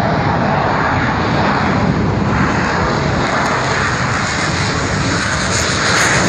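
Military jet's engines roaring as it rolls along the runway, growing louder with a high whine coming in near the end.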